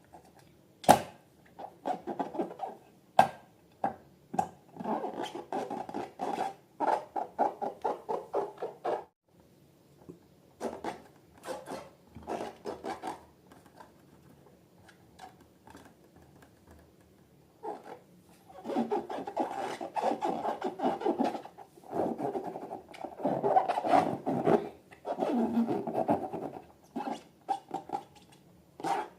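Hands squishing and rubbing slime and balloons, making crackly, scratchy rubbing sounds in bursts, with a quieter lull in the middle.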